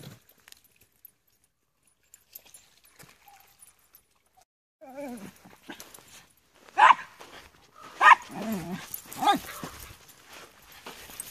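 Small dogs play-fighting. After a few nearly silent seconds they start vocalizing, then give three sharp barks about a second apart, with lower growl-like sounds in between.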